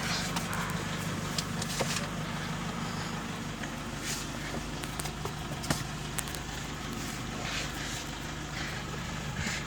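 Toyota 2KD-FTV 2.5-litre four-cylinder turbodiesel running steadily at an even speed, a low hum with scattered light clicks.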